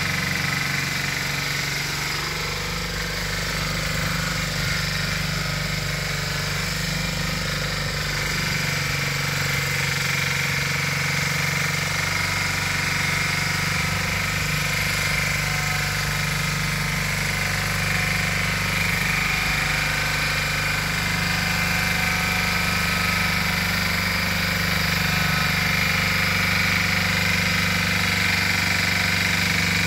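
Valpadana walk-behind tiller's 8 hp, 359 cc Lombardini engine running steadily while tilling. Its pitch shifts slightly a few times as the load changes.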